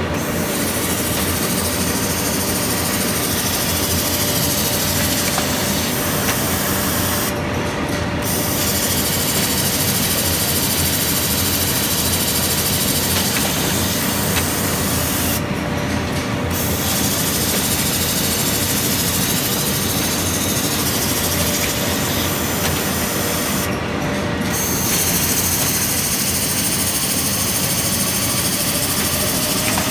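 Automatic notebook-sewing machine running, its industrial sewing heads stitching the spines of ruled paper sheets fed along a conveyor: a steady, dense mechanical noise. The high hiss drops out briefly about every eight seconds.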